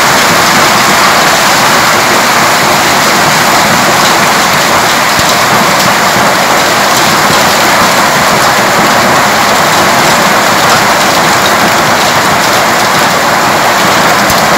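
Heavy hailstorm: hail and rain falling hard, a loud, dense, steady patter of hailstones striking the ground and surfaces, with scattered sharper ticks.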